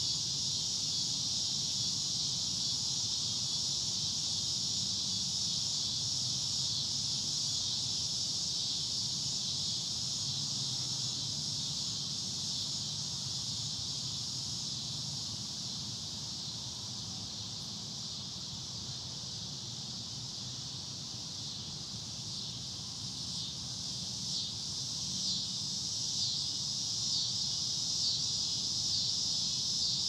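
A steady chorus of cicadas buzzing in a continuous high-pitched drone. It eases off a little midway, then swells again with a faint pulsing near the end.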